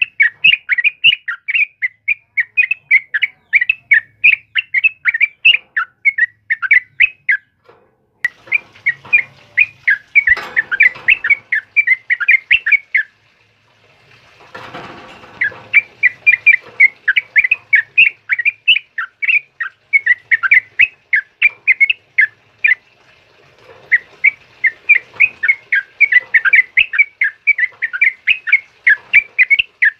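Yellow-vented bulbul (trucukan) singing a rapid, dense run of short chirping notes, about three a second, broken by a few brief pauses.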